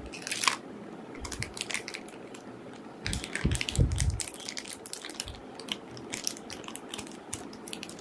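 Crinkling and crackling of a metallic anti-static shielding bag as a new laptop hard disk is unwrapped and slid out of it. The handling is loudest about three to four seconds in.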